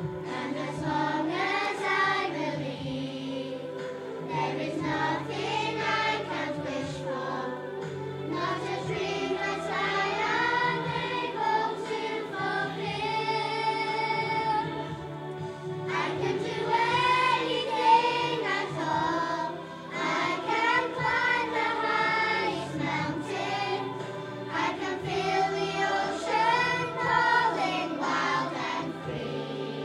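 Primary school children's choir singing a song, with steady sustained low notes of accompaniment beneath the voices.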